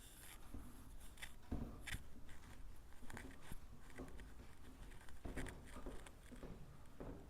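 Faint handling sounds: irregular scratching strokes and small clicks and taps, with a louder knock about one and a half seconds in.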